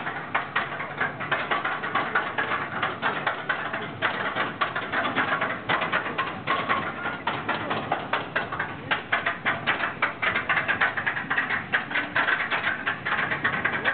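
Fairground ride car in motion, its wheels and frame giving off a dense, rapid, irregular clatter and rattle, a little louder in the second half.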